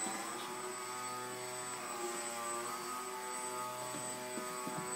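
Electric motor and 7x4 slowfly propeller of an indoor depron Yak 54 RC plane hovering nose-up, a steady buzzing hum whose pitch dips and rises a little as the throttle is worked.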